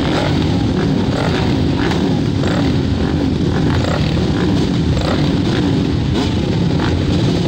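Several flat-track racing motorcycles running together at the start line, a loud steady engine rumble that rises and falls slightly.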